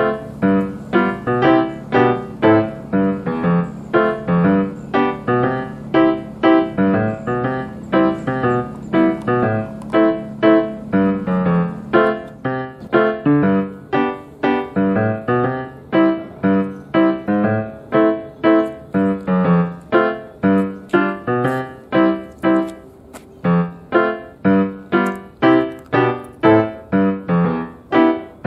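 Background piano music: a steady, evenly paced run of notes.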